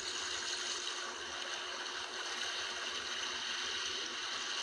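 Shallow sea water washing gently over shoreline rocks: a steady hiss of lapping water.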